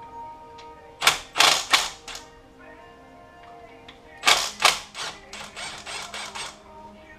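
Cordless power driver run in short trigger bursts: four quick bursts about a second in, then a faster string of short pulses from about four seconds in. Background music plays throughout.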